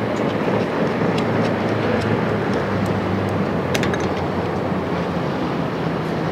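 Motor cruiser's engine running at planing speed, a steady drone over the rush of its wake, with a few light clicks about four seconds in.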